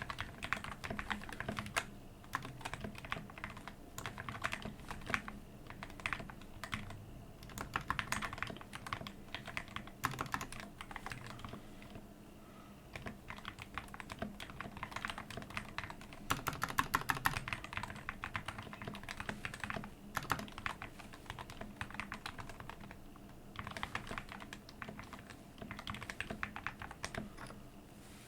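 Typing on a Geek GK61 60% mechanical keyboard with hand-lubricated switches, clipped and lubricated stabilizers, foam dampening under the case and PBT keycaps: runs of fast keystrokes broken by short pauses.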